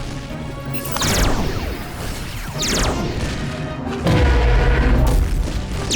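Cartoon zapper sound effects over background music: quick falling sweeps about a second, three seconds and six seconds in, and a low boom about four seconds in, the loudest moment.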